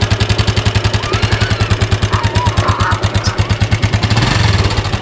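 Motorcycle engine idling with a steady, rapid putter. The revs rise briefly about four seconds in.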